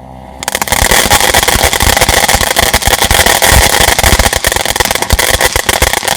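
A 200-gram consumer firework fountain catching about half a second in and spraying, a loud rushing hiss full of dense, sharp crackling from its crackle effect.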